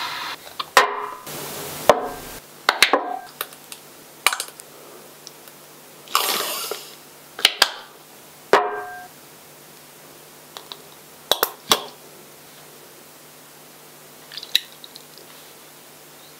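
Kitchen utensils and dishes being handled during food preparation: scattered separate knocks and clinks, with a few short stretches of noisier handling sound in between.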